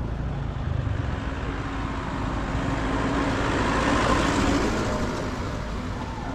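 Road traffic noise, a steady rumble that swells gently about three to four seconds in, as of a vehicle passing.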